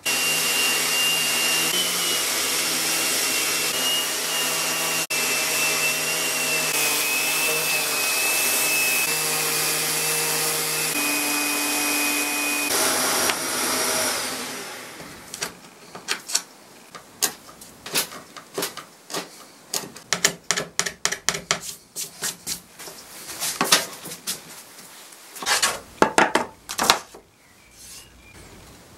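Electric sander running steadily over a drawer's plywood bottom with a high motor whine, stopping about halfway through. After it, scattered light clicks and knocks of the wooden drawer parts being handled.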